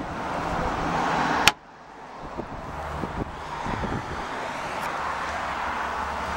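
Outdoor traffic and wind noise, cut off by one sharp clunk about a second and a half in as the Land Cruiser Prado's cabin is shut. The cabin is quieter afterwards, with a few light knocks of handling and a low steady rumble.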